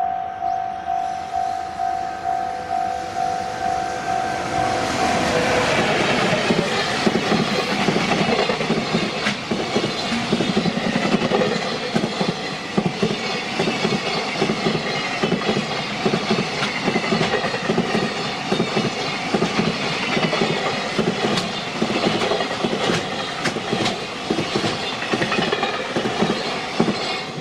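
Level-crossing warning bell ringing in a steady pulse, about two strikes a second. From about five seconds in, a freight train passes: a loud rumble with a rhythmic clickety-clack of wheels over rail joints that drowns out the bell.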